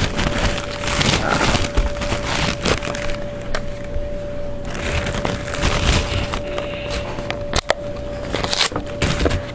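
A small product box being opened and its cardboard and packaging handled: rustling, scraping and sharp crackling clicks, over a faint steady hum.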